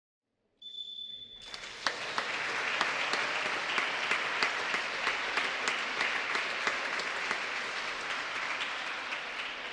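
Applause: many hands clapping steadily, starting about two seconds in and easing slightly near the end. Just before it, after a moment of silence, a short high whistle tone sounds once.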